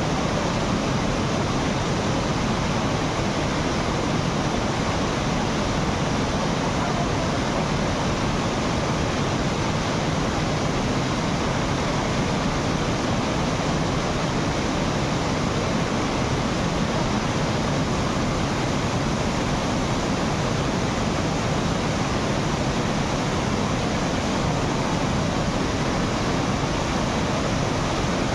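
Steady, unbroken rushing noise that holds the same level throughout.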